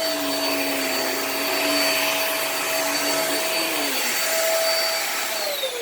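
Hoover React Professional Pet cordless stick vacuum running on carpet, a steady motor whine with airflow hiss. Near the end it is switched off and the motor spins down in a falling whine.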